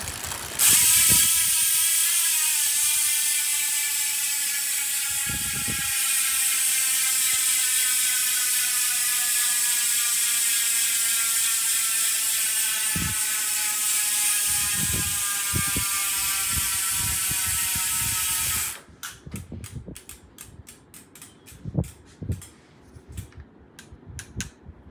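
Profile Elite rear hub freewheeling with the wheel spun in a repair stand: a loud, steady ratchet buzz whose pitch slowly falls as the wheel slows. It cuts off suddenly near the end, followed by a few light clicks and knocks.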